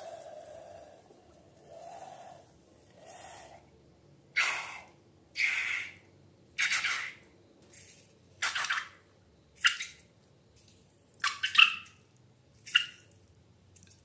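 Wet slime squishing and squelching in a string of short separate bursts, about seven of them, the later ones shorter and sharper.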